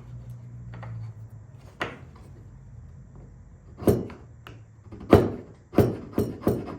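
Short, sharp knocks and scrapes of a hand tool working excess wood off cherry pieces, about six irregularly spaced strokes, the loudest about five seconds in.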